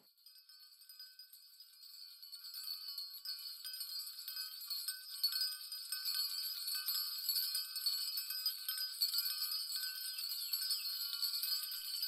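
Gentle tinkling and ringing of small bells, starting very faint and getting steadily louder, all high and thin with no low sound beneath it.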